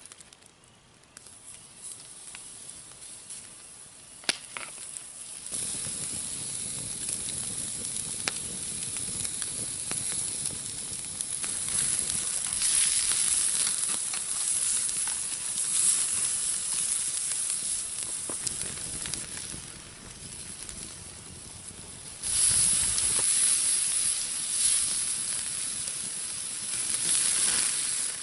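Food sizzling as it cooks over a wood fire, with scattered pops and crackles. Faint at first, the sizzle grows louder about five seconds in and then swells up and down.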